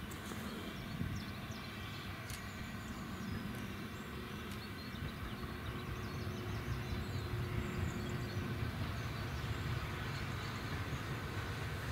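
A steam train approaching, its low rumble growing steadily louder from about halfway through.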